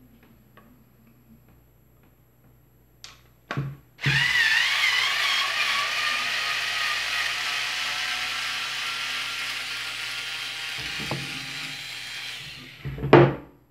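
Motor of a Multilaser Home 4.8 V cordless screwdriver whirring steadily for about nine seconds as it turns a screw in a wooden board through a socket adapter, its pitch wavering and its level slowly easing off. A couple of short knocks come just before the motor starts.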